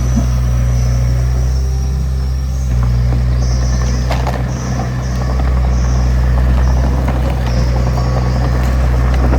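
Heavy diesel engine of earth-moving machinery running steadily, with a deep hum and a knock about four seconds in.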